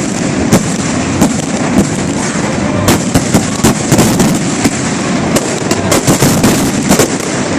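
Aerial fireworks going off in a rapid barrage, sharp bangs and cracks following one another several times a second, thickest in two clusters in the middle and latter part, over a continuous crackling rumble.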